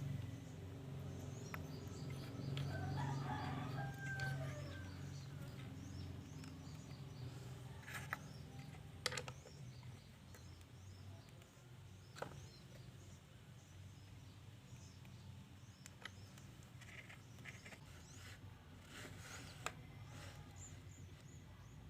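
A rooster crowing once, faintly, about three seconds in, over a low steady hum, with a few sharp clicks later on.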